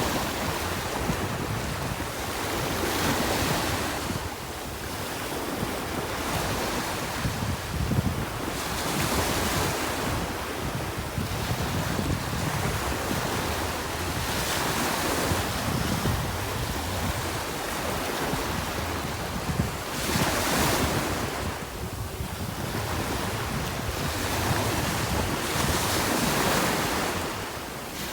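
Wind buffeting the microphone over sea water and small waves, the noise swelling and easing every few seconds.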